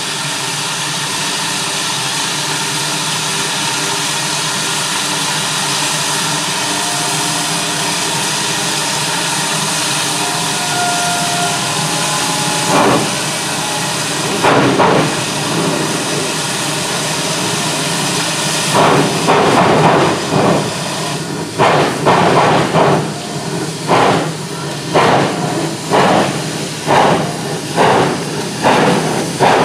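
Arcade & Attica No. 18, an Alco-built 2-8-0 Consolidation steam locomotive, hisses steadily with steam while standing, then starts away. Its first slow exhaust chuffs come about halfway through and settle into a regular beat of roughly one a second by the end, with steam venting at the cylinders.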